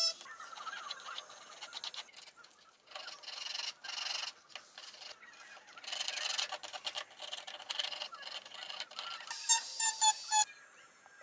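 Small electric rotary carving tool with a fine burr whining as it cuts into wood, in several short stretches, loudest near the end.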